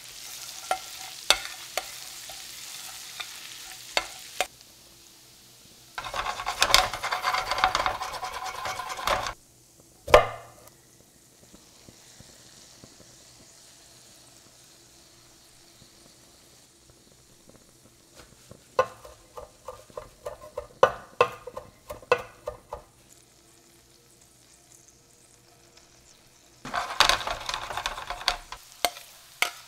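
Minced garlic sizzling in melted butter in a stainless steel skillet, stirred with a metal spatula that clicks and scrapes against the pan. The sizzle flares loud twice, about six seconds in and again near the end, drops low in between, and a run of sharp taps comes in the middle.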